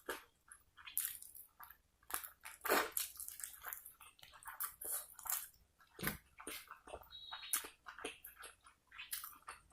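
Close-miked chewing and wet mouth smacks from a person eating, heard as a rapid, irregular run of small sharp clicks.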